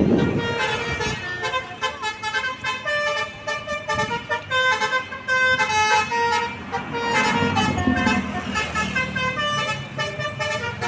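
Bus basuri horn, a multi-tone melodic horn, playing a tune as a quick run of short notes that step up and down in pitch. A short rumble comes near the start and again about seven seconds in.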